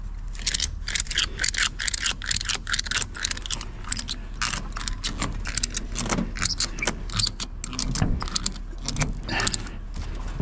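Vehicle driving, with a steady low hum under constant light metallic rattling and jangling.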